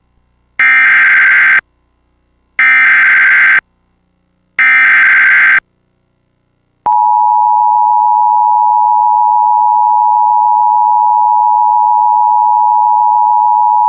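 Emergency Alert System activation: three one-second bursts of screeching SAME digital header data, two seconds apart, then the steady EAS two-tone attention signal beginning about seven seconds in. It heralds a National Weather Service severe thunderstorm warning.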